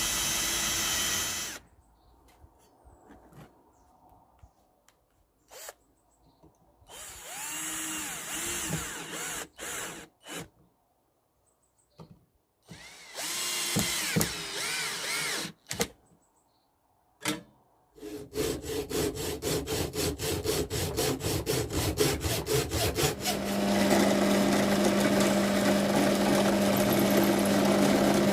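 Power drill run in short bursts with pauses between, its pitch rising and falling as the trigger is worked; in the last third it runs without stopping, with a fast, even rattle and a steady hum.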